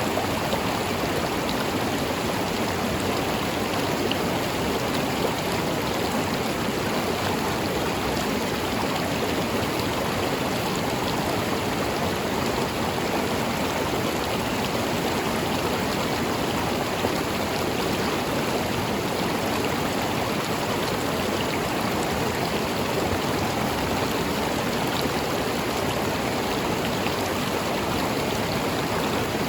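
A river running steadily, its flowing water making an even rushing sound with faint splashes.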